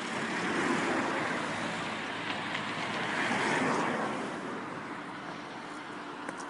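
Road traffic on a bridge: vehicles passing, the noise swelling and fading twice, over a steady hiss.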